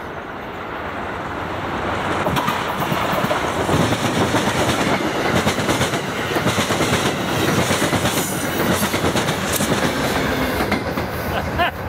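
Amtrak regional train behind an electric locomotive passing at speed: a loud rush of wheels on rail that swells about two seconds in, with fast clickety-clack of the coaches' wheels over the rail joints, easing off slightly near the end as the train goes by.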